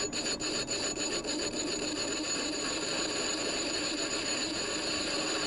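Myford ML7 lathe running while a turning tool cuts the cast iron centre boss of a spoked flywheel: a steady scraping cut with a high whine, and rapid ticking that fades after about a second and a half.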